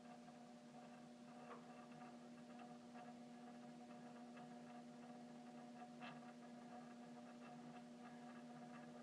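Mechanical doorbell chime humming faintly and steadily, with a couple of faint ticks: its front striker is vibrating under power from the Ring Pro video doorbell circuit.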